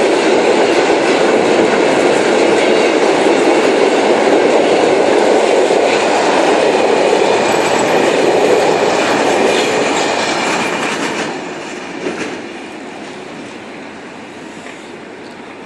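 Container freight train's wagons rolling past at close range, a dense steady rumble of wheels on rail. About eleven seconds in the last wagons go by, with a single knock, and the sound falls away as the train moves off.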